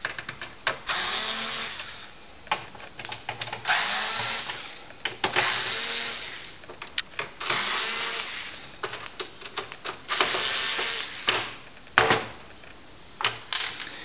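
A cordless electric screwdriver runs in five bursts of about a second and a half each as it backs out the screws holding down a keyboard bezel. Light clicks and rattles of screws and handling come between the bursts.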